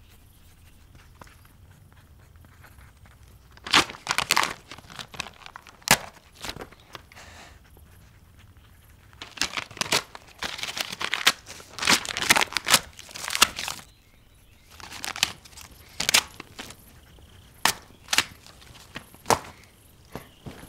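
Paper being torn and crumpled by hand: a notebook page ripped out and scrunched up, in a string of short rustling bursts from about four seconds in, thickest around ten to fourteen seconds, with a few more near the end.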